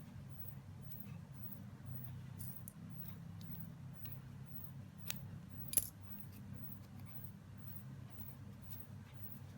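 Quiet handling of a metal crochet hook and yarn: scattered faint clicks, and two sharper clicks a little past halfway, over a low steady hum.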